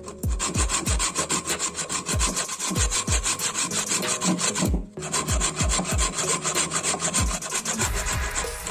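Hand saw cutting into a wooden block in quick back-and-forth strokes, the teeth rasping through the wood, with a short pause about five seconds in.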